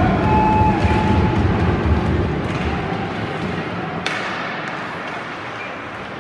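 Ice hockey arena during play: a low rumble and murmur of voices that fades after about two and a half seconds, with one sharp crack from play on the ice about four seconds in.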